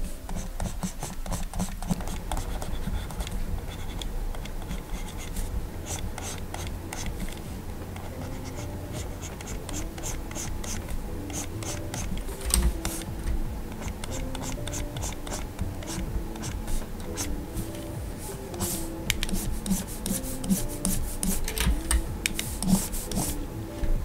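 Stylus rubbing, scratching and tapping on the screen of a Gaomon PD2200 pen display in quick irregular strokes, with scattered sharp clicks, over soft background music.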